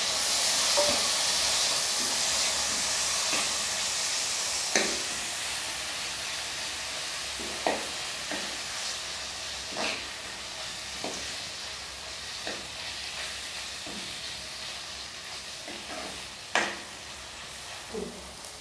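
Onions and freshly added chopped tomatoes sizzling in a kadai, stirred with a metal spoon that clinks and scrapes against the pan now and then. The sizzle is loudest at first and dies down gradually as the tomatoes settle into the hot pan.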